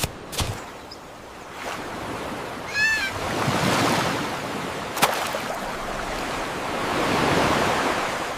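Sound-effect waves washing, the surge swelling and fading twice. A short high chirp comes just before three seconds in, and there are a couple of sharp clicks.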